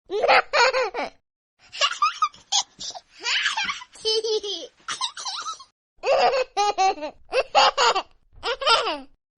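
A baby or small child laughing in repeated fits of giggles, with short breaks between them.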